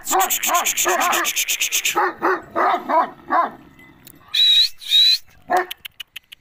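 A dog barking about eight times in quick succession, then stopping after about three and a half seconds. A fast high rattle runs under the first barks, and two short high whistles follow about a second later.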